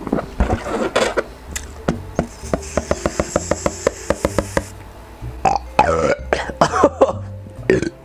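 Helium hissing out of a balloon as it is inhaled, then, from about five and a half seconds in, a run of short burps after a fizzy soda.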